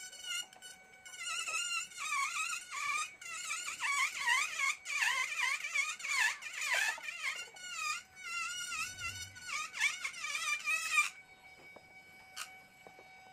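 Background music: a wavering, sliding melody line with many overtones, settling onto steady held notes for the last two seconds.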